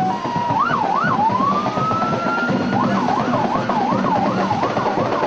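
Electronic vehicle siren, changing between a fast up-and-down yelp and a slow rising wail, over a steady low hum and traffic noise.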